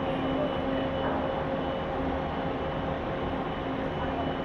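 Steady mechanical hum with several held tones from the machinery of the helicopter destroyer JS Izumo, moored alongside.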